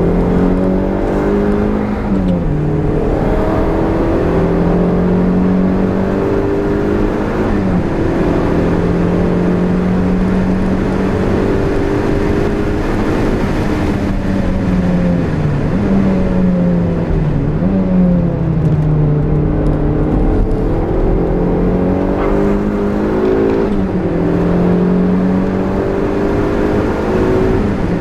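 Turbocharged Toyota MR-S 1.8-litre four-cylinder engine under hard driving, heard from inside the cabin. The engine note climbs steadily under throttle, then falls back sharply at each gear change or lift for a corner, several times over.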